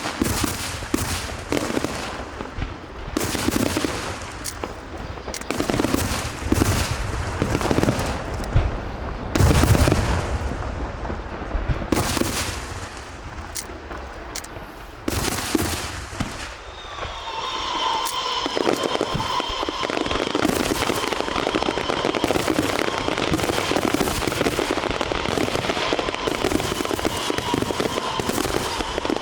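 Aerial fireworks bursting in quick succession with sharp bangs and booms. About seventeen seconds in, they merge into a dense, continuous crackling barrage.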